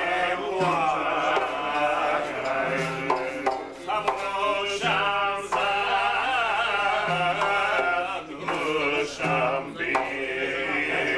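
A man singing an ornamented, wavering melody to two plucked long-necked lutes, with a low plucked note coming back about every two seconds.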